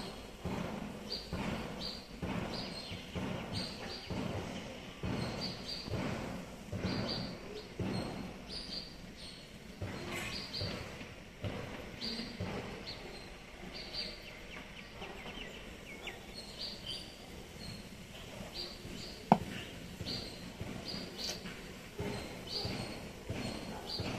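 Small birds chirping over and over in short high notes, with a steady background hum of ambient noise. A single sharp click about nineteen seconds in.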